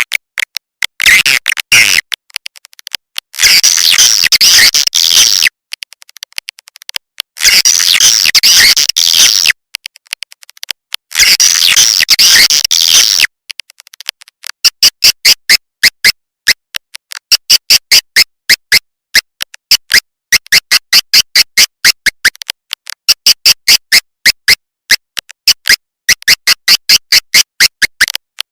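Swiftlet call recording used as a lure to draw swiftlets into a nesting house: three dense bursts of twittering chirps, each about two seconds long, then a long run of short, rapid, evenly spaced chirps at several a second.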